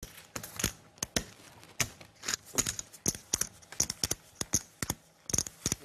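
Clay poker chips clicking together as they are handled at the table: a run of sharp, irregular clicks, several a second.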